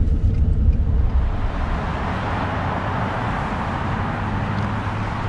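Low road rumble inside a moving truck, which gives way after about a second and a half to a steady outdoor hiss of road traffic.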